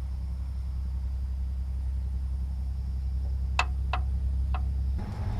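An engine idling steadily, with three light metallic clicks a little past the middle; near the end the engine note shifts and grows louder.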